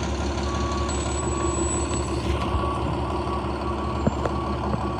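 Front-loader garbage truck's diesel engine running steadily with its forks holding a dumpster raised over the cab, while its reversing alarm beeps as it backs up. A couple of sharp clanks come about four seconds in.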